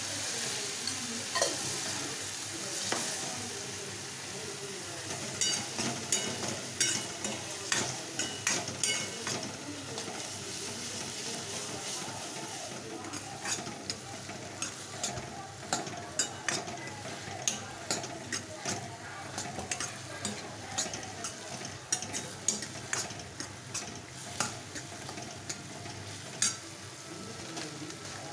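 Chopped tomatoes sizzling as they sauté in hot oil in a pan, stirred with a steel ladle. The ladle knocks and scrapes against the pan in frequent, irregular clicks.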